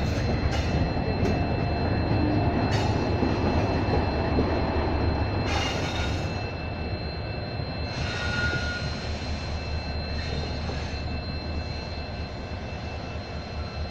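Passenger train coaches rolling slowly out on departure: a steady low rumble of wheels on track, with a few sharp clacks over rail joints in the first six seconds and a brief faint wheel squeal about eight seconds in.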